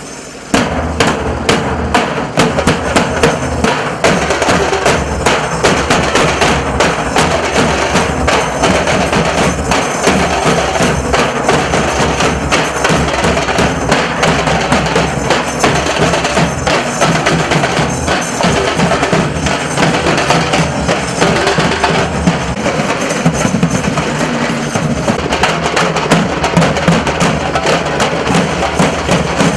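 Nasik dhol drumming: a troupe of large dhol drums with sharp, cracking high strokes in a dense, driving rhythm that does not let up. The playing dips briefly at the very start, then carries on.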